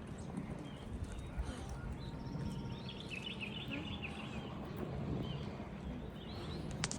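Outdoor ambience: a steady low rumble of wind or mic handling, with small birds twittering in a quick burst about two and a half seconds in and a few scattered chirps. A sharp click near the end.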